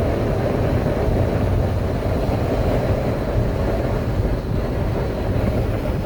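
Wind rushing into a 2019 Toyota RAV4's cabin through the open sunroof at about 40 mph, with the roof-rack crossbars up top: a loud, steady, low rush of air over the road noise.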